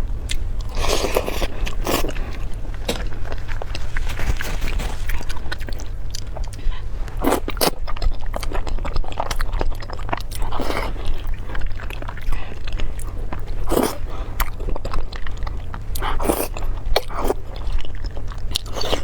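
Close-miked eating: a person biting and chewing food, with many small clicks and several louder, longer bursts of mouth noise, over a steady low hum.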